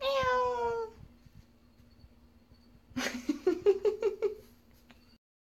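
A wet, unhappy domestic cat meows once, a long call falling slightly in pitch. About three seconds in comes a quick run of short pitched pulses, about six a second.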